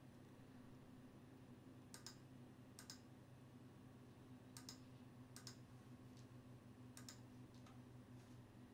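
Faint clicks of a computer mouse, about six in loose pairs a second or so apart, over a low steady hum.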